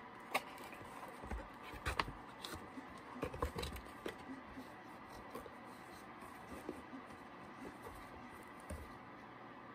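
Hands handling a cardboard box and packaging: scattered clicks, taps and rustles, busiest in the first four seconds, then thinning to a few faint ticks.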